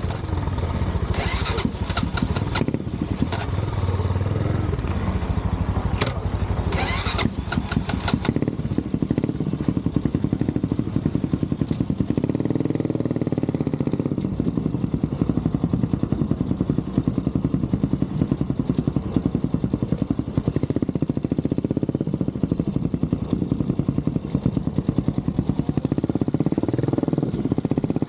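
Honda CB400SS single-cylinder engine running steadily as the bike moves off, its pitch rising and falling gently with the throttle.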